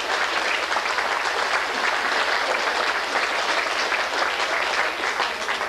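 Audience applauding: many people clapping together, the clapping dying away near the end.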